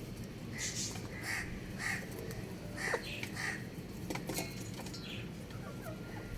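Chickens giving a series of short, harsh calls, about six of them spaced half a second to a second apart.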